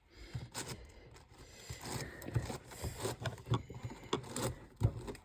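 Plastic puzzle cube being handled, giving irregular clicks, rattles and scrapes.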